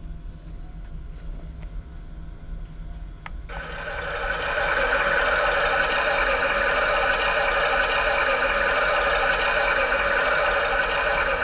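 Japanese electronic bidet toilet's privacy function playing a recorded rushing-water sound through its speaker. A button click about three and a half seconds in starts it; it swells over about a second, then runs loud and steady.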